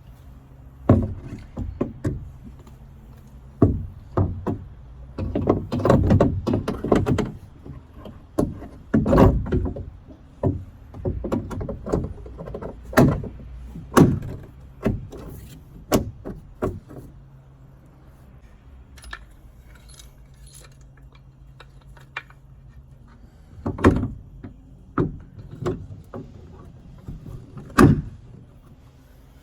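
Irregular knocks, clatters and jangling rattles, bunched in busy stretches with a few single sharp knocks near the end, over a steady low hum.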